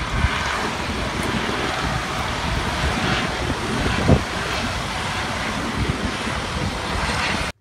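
Steady rush and low rumble of wind on the microphone over surf at a lava ocean entry, with one short thump about four seconds in; it cuts off abruptly just before the end.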